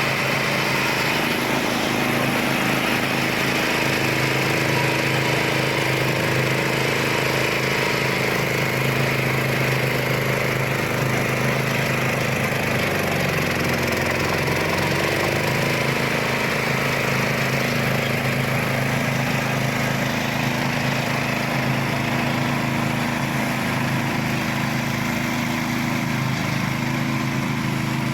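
Homemade zero-turn ride-on lawn mower running steadily under way, its engine note dipping and recovering briefly about halfway through.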